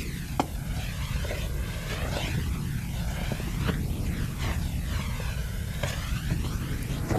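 Steady low rumble with a swirling, sweeping hiss above it and a few faint clicks.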